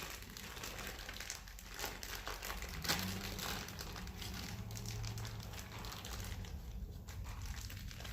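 Crinkling and rustling of plastic parts packaging as new replacement gears are searched for and handled, with a sharp click about three seconds in.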